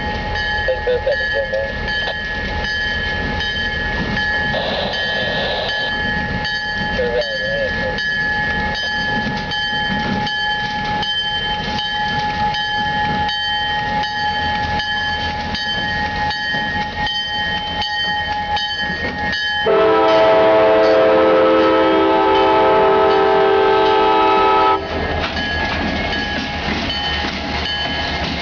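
A light engine move of two diesel-electric locomotives, an EMD GP40-2 with its 16-cylinder 645 engine leading an SD70ACe, running past with a regular knock. About twenty seconds in, the locomotive air horn sounds one long blast of about five seconds, then stops abruptly.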